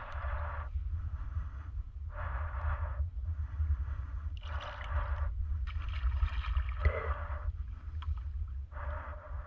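Wind rumbling on an action camera's microphone, with short rushing noises about every two seconds.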